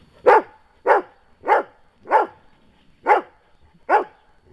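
Beauceron barking: a steady run of six short barks, about one every two-thirds of a second, each dropping in pitch.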